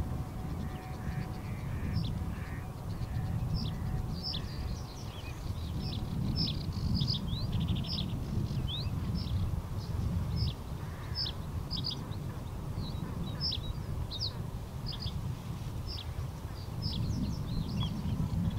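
Male reed bunting singing short, high, chirping song phrases, repeated every second or two, over a steady low rumble.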